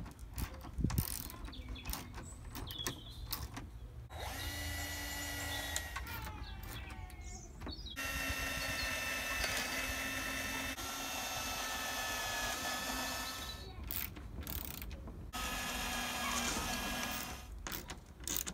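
Cordless drill-driver running in three spells, the middle one about six seconds long, driving screws into a wooden board to fix semi-flexible solar panels down. Clicks and knocks of handling screws and the drill come between the runs.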